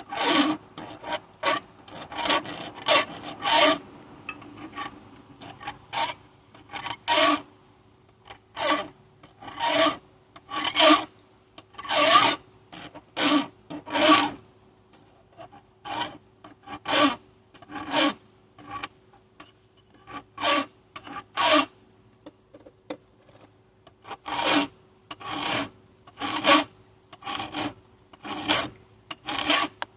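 Metal hand file being stroked across chainsaw chain teeth, a rasping scrape on each push stroke, repeated about once a second with short pauses between runs.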